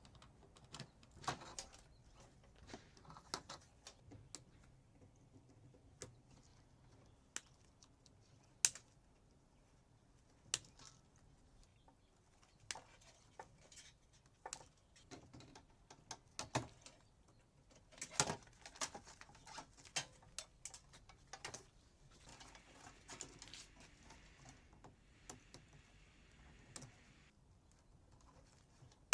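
Irregular faint clicks, taps and clinks of hand tools and loose metal parts while a microwave oven is being taken apart, with a few sharper knocks standing out.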